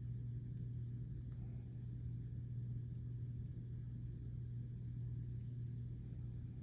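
Steady low hum of background room noise with a constant low tone, and a few faint clicks.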